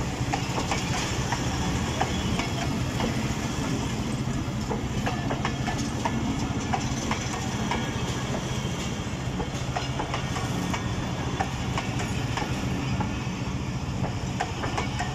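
Passenger coaches of a Pakistan Railway train rolling past at close range: a steady rumble of steel wheels on the rails, with frequent clicks and knocks as the wheels cross rail joints.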